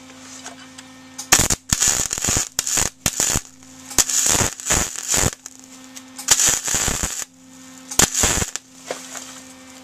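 Wire-feed (MIG) welder arc crackling, in several short stop-start spells from about a second in until near the end, with the welder turned up hot. It is welding onto a broken-off bolt stud, whose heat helps loosen the stud for extraction.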